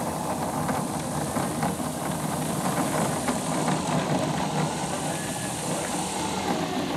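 Electric-converted 12-foot Telemaster RC plane taxiing at low throttle, its brushless motor and 20x12 wood propeller whirring steadily.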